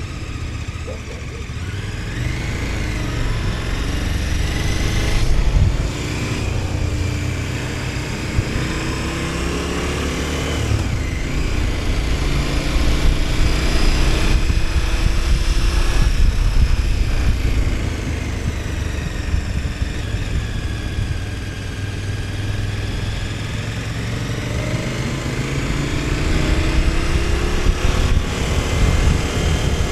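KTM 1290 Super Adventure S V-twin engine running on the move, its pitch rising and falling several times as the rider works the throttle, with a heavy low rumble of wind and road noise.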